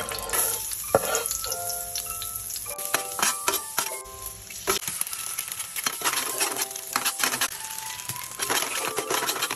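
Minced garlic sizzling in hot oil in a stainless-steel frying pan, with a metal spoon stirring, scraping and clinking against the pan. Partway through, an egg goes into the pan and sizzles along with the garlic.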